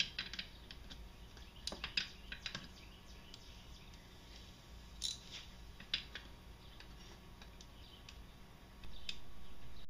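Wrench removing the starter mounting bolts on a Can-Am Outlander engine: faint, scattered light metallic clicks and taps, a few sharper than the rest.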